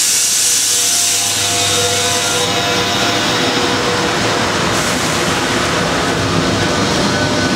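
Steady, loud machinery noise inside an EP20 electric locomotive's machine room, with a strong hiss over it for the first two seconds or so that then drops away.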